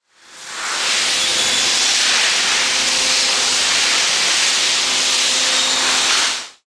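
Aluminum recycling hammermill line running: a loud, steady, hiss-like industrial din with faint humming tones under it. It fades in over the first second and cuts off abruptly near the end.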